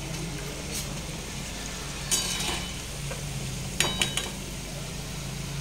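Alu vadi deep-frying in oil in an iron kadhai, with a steady sizzle and a steady low hum underneath. A steel slotted spatula scrapes in the pan about two seconds in, then clinks three times against the kadhai and steel plate, just before and after four seconds in.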